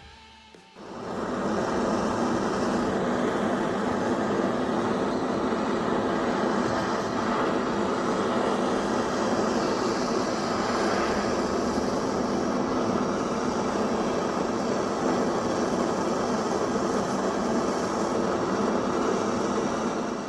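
Steady, loud machine noise that starts about a second in and cuts off abruptly at the end.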